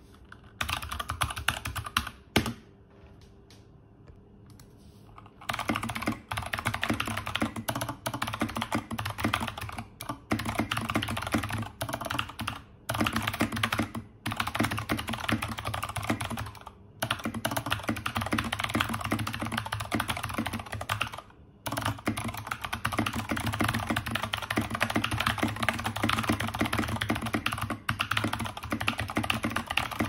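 Fast typing on a mechanical keyboard with Zeal Clickiez clicky switches, an NK65 Entry Edition with its silicone dampening removed, fitted with KAT-profile keycaps: a dense run of sharp clicks with brief breaks between bursts. The typing stops for about three seconds near the start, then runs on.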